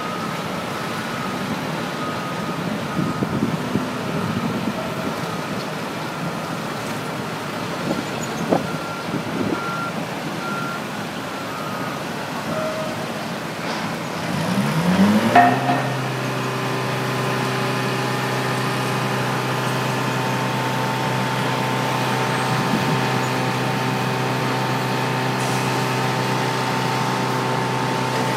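Heavy diesel construction machinery running, with uneven engine noise, a few knocks and faint intermittent high beeps. About halfway through, an engine revs up quickly and then holds steady at high revs.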